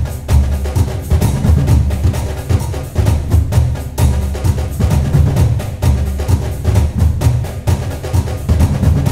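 Background music with drums and percussion and a steady beat.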